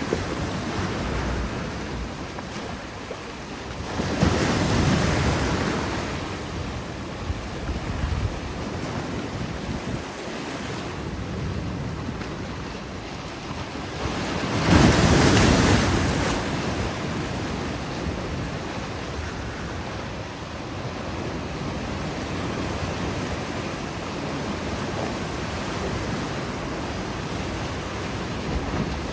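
Pacific surf breaking on a sandy beach: a continuous wash of waves, with two louder crashes, about four seconds in and again about fifteen seconds in.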